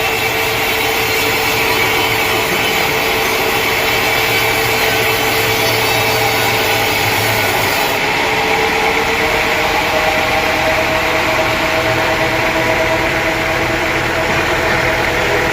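Sawmill saw and its machinery running steadily, a loud drone under a whining tone whose pitch drifts slowly; the sound shifts a little about eight seconds in.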